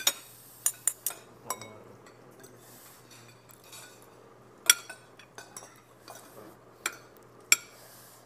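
Metal fork and spoon clinking and scraping against ceramic bowls while eating: scattered sharp clinks, a cluster in the first second and a half and the loudest about halfway through.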